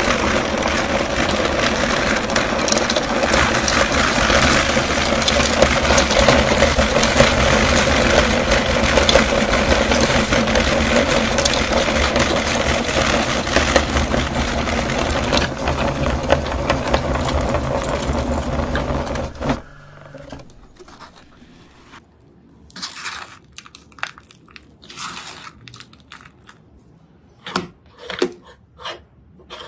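Meat grinder running under a steady motor hum, with a gritty crunching as hard fruit candy is ground to powder and pushed out through the plate. The grinder stops suddenly about twenty seconds in, leaving a string of short scrapes and knocks that come quickly one after another near the end.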